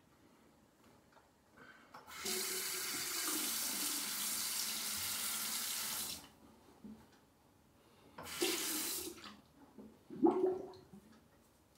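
Bathroom sink tap running for about four seconds, then turned on again for about a second, with a brief splash near the end.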